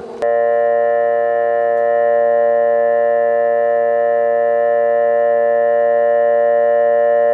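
An old central-office telephone dial tone from an Electric Specialties Company tone generator. It is a steady, buzzy tone with many overtones that starts about a quarter second in and holds unchanged at an even level.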